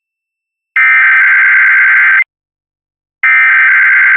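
Emergency Alert System SAME header: loud, buzzy digital data bursts, each about a second and a half long with a one-second gap between them. Two bursts fall here, the second and third of the three repeats of the coded header that opens an EAS test.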